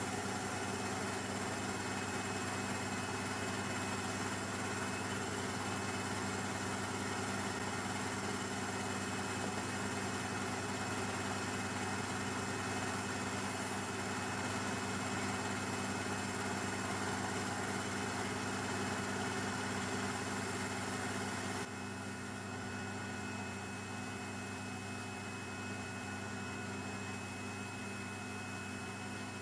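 Sandblasting cabinet in use: a steady hiss of blast air and abrasive from the gun, with the air compressor's motor running as a steady hum underneath, as rust is stripped from a blower housing. The level steps down slightly about three-quarters of the way through.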